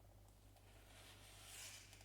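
Near silence: room tone with a faint, soft swell of rustling noise about a second in.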